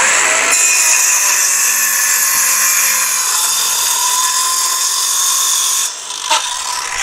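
Cordless 18-volt DeWalt circular saw ripping through half-inch plywood, a steady high-pitched cutting whine. The cut ends about six seconds in and the sound drops away, followed by a sharp knock.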